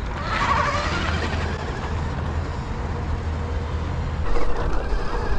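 NIU XQi3 electric motorcycle climbing a dirt hill under power: a whine from its geared motor over a steady rush of tyre noise. It gets louder about four seconds in.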